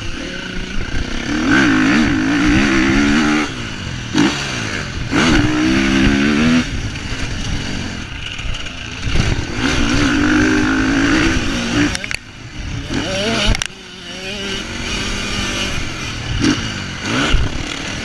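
Motocross bike engine revving hard in repeated surges a couple of seconds long, pitch climbing and dropping between them as the bike accelerates and backs off around the dirt track.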